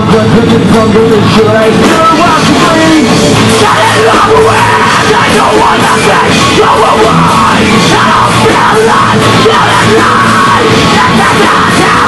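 Loud live post-hardcore rock band playing: distorted electric guitars, bass guitar and drum kit, with shouted vocals over the top.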